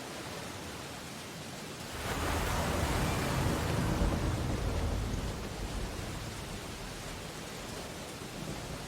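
Steady rain hiss from a rainy storm. About two seconds in, a louder low rumbling swell rises over it, peaks, and eases back over a few seconds.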